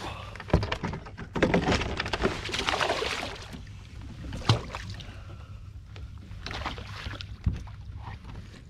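Water splashing and churning beside a kayak as a hooked fish thrashes at the surface, loudest over a couple of seconds near the start. Three sharp knocks against the kayak's hull are spread through it.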